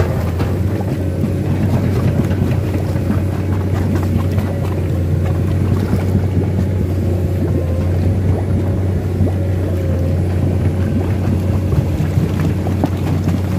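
Excavator's diesel engine running steadily, a deep even drone.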